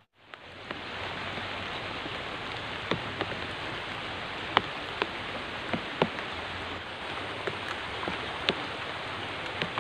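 Steady rushing water from a swollen, muddy river, with a few sharp drips or ticks scattered through it.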